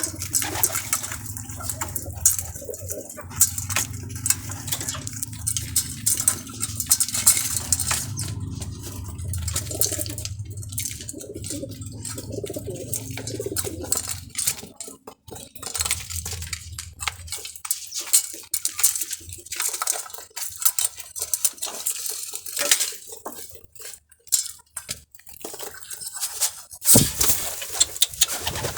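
Irregular clinks, taps and scraping knocks, like dishes or metal being handled, over a low hum that stops about 17 seconds in.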